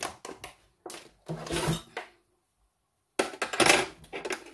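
Kitchen utensils and dishes being handled: a few short clinks and knocks, then a louder scraping clatter lasting about a second, starting about three seconds in.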